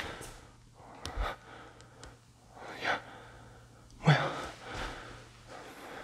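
A person breathing audibly, with a few sharp breaths; the loudest comes about four seconds in. Underneath is a faint steady low hum that stops at about the same time.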